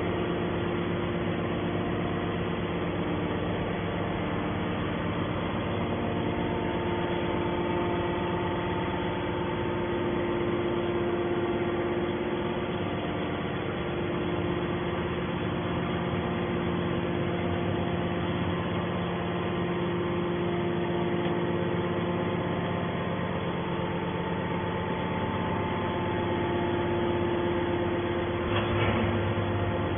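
Aluminium can baler's machinery running at a steady pitch, a continuous hum of several fixed tones with no strokes or impacts.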